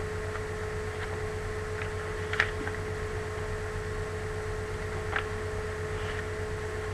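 Comic book pages being leafed through: two brief, soft paper rustles, about two and a half and five seconds in, over a steady hum and hiss.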